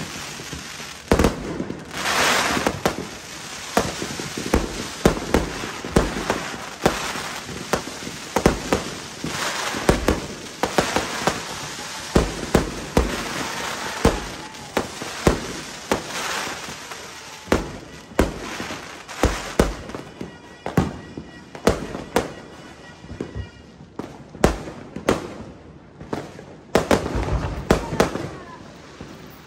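Fireworks going off in rapid succession: many sharp bangs, several a second, over continuous crackling from the bursting shells.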